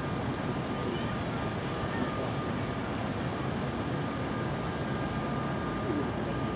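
Steady rushing outdoor background noise with a faint high whine in it; faint distant voices come in near the end.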